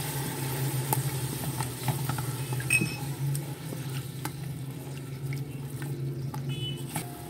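Silicone spatula stirring yogurt into tomato masala frying in oil in a metal pot: a soft sizzle with scattered light scrapes and taps. A steady low hum runs underneath.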